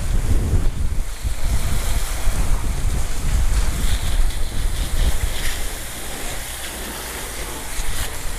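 Garden hose spray nozzle jetting water onto freshly cleaned fish on a cutting board: a steady rushing spray and splashing with a heavy low rumble, easing off about six seconds in and picking up again near the end.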